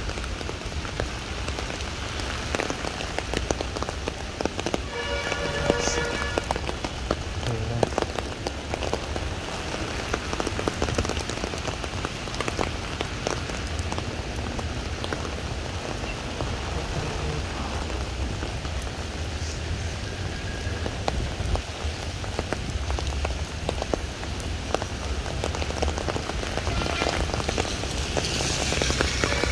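Steady rain falling on wet brick paving, trees and the lake, with many separate drops ticking close by. A short pitched call or tone sounds about five to six seconds in.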